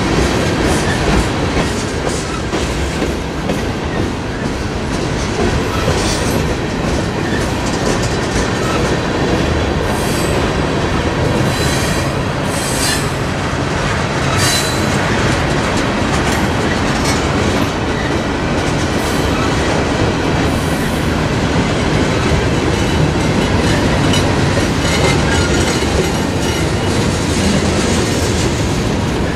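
Freight train cars rolling past on the rails: a steady rumble of steel wheels with a clickety-clack as the trucks cross rail joints. A few brief high wheel squeals come around the middle.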